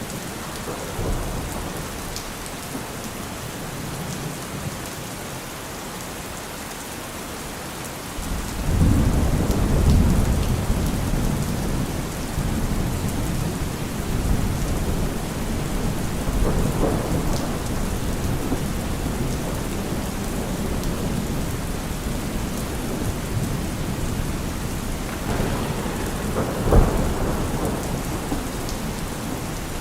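Steady rain with thunder: a low rumble rolls in about eight seconds in and goes on, with a sharper crack of thunder near the end.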